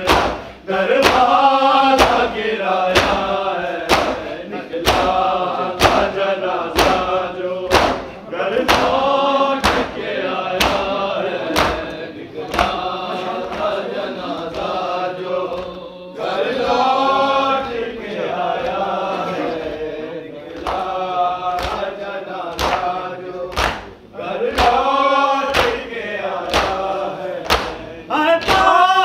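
Voices chanting a noha, a Shia lament, in a repeated melodic line. Sharp beats keep time under the chant at about two a second.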